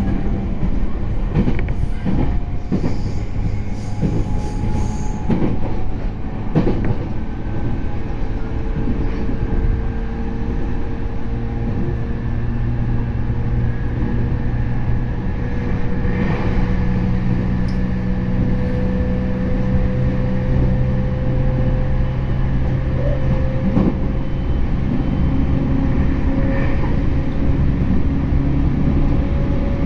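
JR East E231 series electric train running, heard from inside the car: a steady low rumble under the motor and inverter tones of its Hitachi IGBT drive, one of them a slowly rising whine. Several sharp wheel clacks over rail joints come in the first few seconds.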